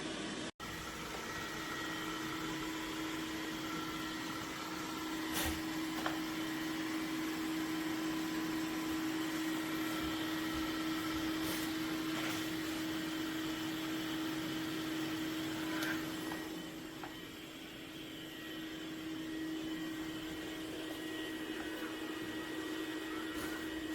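Dreame X50 Ultra robot vacuum running: a steady motor hum with a constant whine, broken by a few sharp clicks and a brief dip in level about two-thirds of the way through.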